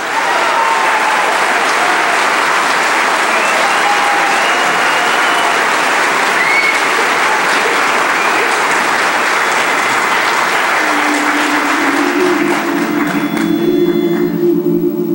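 An audience applauds a barbershop chorus, with a few whistles. Near the end the applause dies away as the men's chorus comes in holding a sustained low chord.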